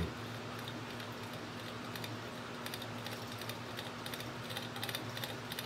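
Light, irregular ticking from a slitting saw on a milling machine arbor being turned slowly by hand, over a low steady electrical hum.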